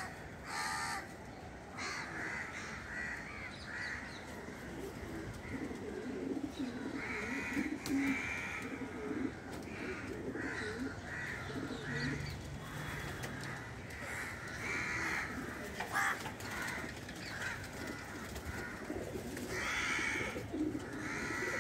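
Domestic pigeons cooing in low, repeated calls, with higher-pitched bird calls repeating over them.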